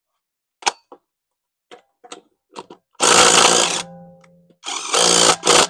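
A few light clicks, then a Craftsman R+P 20-volt impact driver hammering on a wheel's lug nut in two loud bursts of about a second each, its motor winding down after the first.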